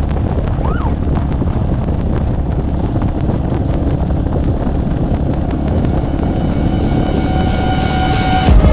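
Small motorcycle engine running steadily while riding, with heavy wind noise on the bike-mounted microphone. Music fades in near the end.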